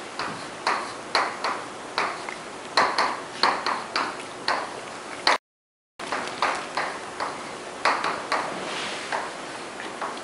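Chalk tapping on a chalkboard as an equation is written: a string of short, sharp taps, about two or three a second. The sound cuts out briefly about halfway through.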